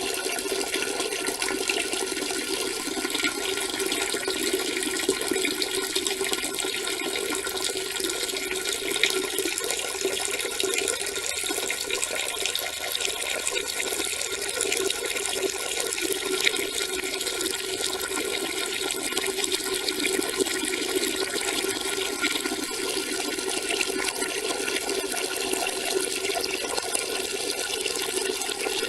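A steady stream of urine splashing into toilet-bowl water, running continuously without a break.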